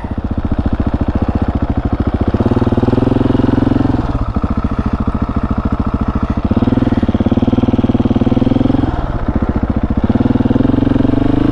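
Husqvarna 701's single-cylinder four-stroke engine pulling under throttle: the revs climb and drop off sharply twice, then climb again near the end.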